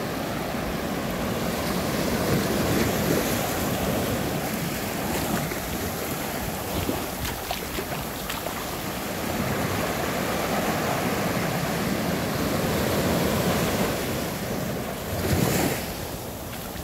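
Ocean surf washing onto the beach, swelling and easing every few seconds, with wind on the microphone and one brief gust near the end.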